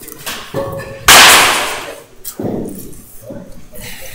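Baseball bat hitting a pitched ball once, a loud crack that echoes and dies away over about a second, with a few softer knocks before and after.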